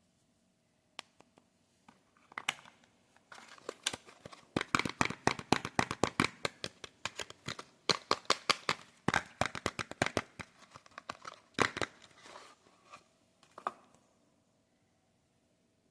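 Wrapper of a Lux soap bar being torn open and crinkled by hand, a dense run of sharp crackles that builds up after a couple of seconds and dies away near the end.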